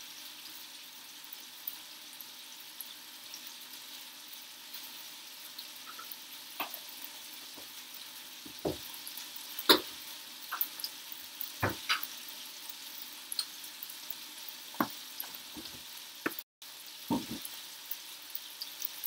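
Chicken thighs sizzling as they brown in a frying pan: a steady hiss with scattered sharp pops and crackles, the loudest about ten seconds in.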